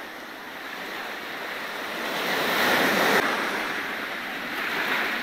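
Sea waves washing up on a sandy beach: one wash swells to a peak about three seconds in and breaks off, then a softer one follows near the end.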